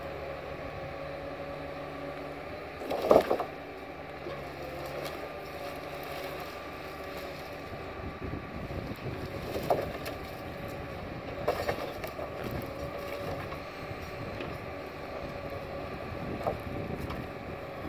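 Timberpro 840B forwarder running, its engine and hydraulics giving a steady note with a steady whine over it. Several sharp knocks come through; the loudest is about three seconds in.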